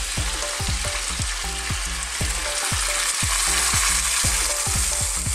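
Pork ribs frying in oil in a pot, a steady sizzle with frequent soft pops, as water is poured in from a small saucepan.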